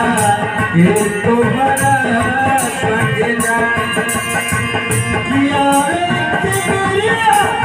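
Live devotional bhajan accompaniment: harmonium playing the melody over a dholak beat, with a tambourine's jingles shaken in a steady rhythm.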